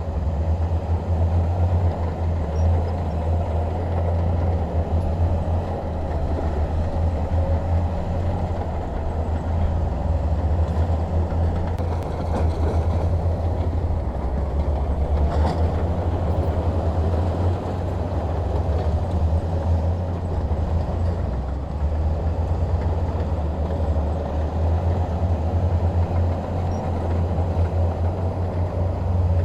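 Bulldozer's diesel engine running steadily under load, with a deep low drone, and a single light knock about halfway through.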